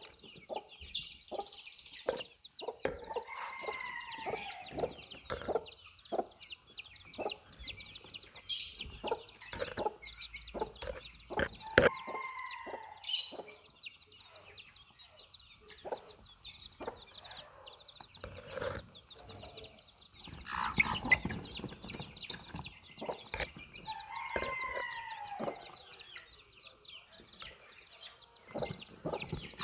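Baby chicks peeping continuously in high, rapid chirps, with adult chickens clucking and many short taps among them. Three longer, drawn-out calls from an adult bird stand out: one about four seconds in, one near the middle and one near the end.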